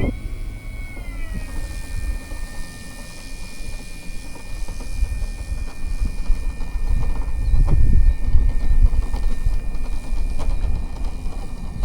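Electric motor of a large radio-controlled model plane whining as it taxis: a steady high-pitched whine that drops in pitch over the first second or so and then holds. Wind rumbles on the microphone underneath, gusting louder past the middle.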